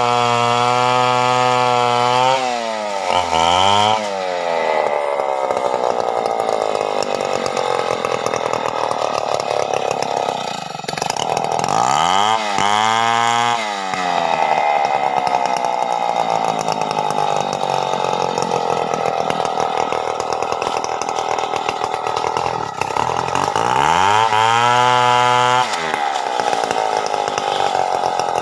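Stihl 070 two-stroke chainsaw running hard through a teak trunk: high revs sag and waver under the load of the cut. The revs drop and climb back three times, a few seconds in, about twelve seconds in and near the end.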